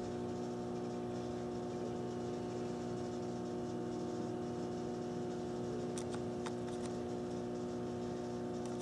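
American DJ UFO Pro moving-head light fixture running through its power-up initialization, its motors giving a steady hum made of several tones. A few faint clicks come about six seconds in and again near the end.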